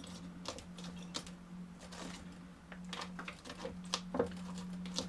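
Handfuls of moist, salted shredded cabbage being pressed by hand through a plastic funnel into a glass jar: irregular rustling and light crackly taps, over a steady low hum.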